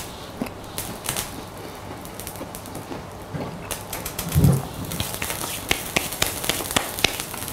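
Close, small crackling clicks of someone chewing a soft cherry-filled donut, getting busier in the second half, with one short low sound about four and a half seconds in that is the loudest moment.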